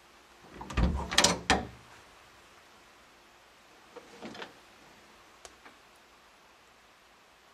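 Interior door knob turned and its latch clicking and rattling as the door is opened: a quick cluster of sharp clicks lasting about a second. A softer shuffling sound follows about four seconds in, then two faint ticks.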